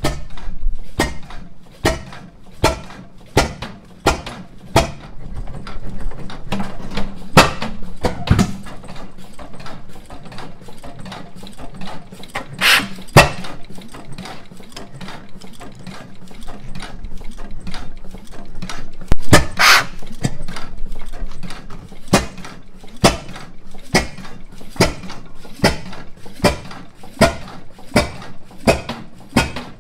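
1910 International Harvester Famous 8 hp single-cylinder stationary engine running on its own after starting. It gives a sharp, somewhat irregular exhaust bang about once a second, with mechanical clatter between the bangs, in the uneven rhythm of a hit-and-miss engine. Two louder bangs come about 13 and 19 seconds in.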